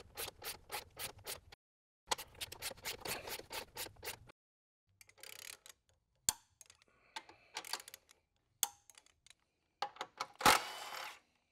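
Ratchet clicking in quick runs, about five clicks a second, as it turns a rivet-nut setting tool to set a rivet nut in the frame rail; after a pause come a few light clicks and rubbing, then a sharp knock near the end.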